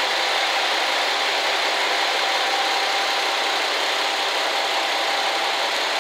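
JR Shikoku N2000 series diesel railcar idling at the platform: a steady, unchanging engine drone with a faint constant tone.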